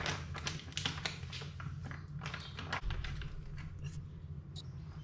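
Plastic packet of instant fritter flour mix crinkling as it is handled and shaken out over a bowl, a quick run of small crackles, with a single low thump about three seconds in.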